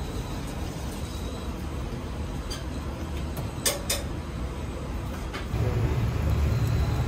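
Steady low rumble of a commercial kitchen, with a few sharp clicks around the middle while fish is filleted on a plastic cutting board. A little past five seconds the rumble steps up louder.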